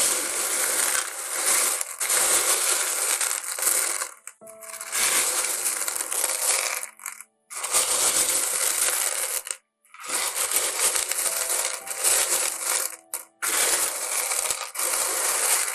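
Small pieces of rough nobby opal clattering and clinking against each other as they are stirred around, in long stretches broken by a few brief pauses.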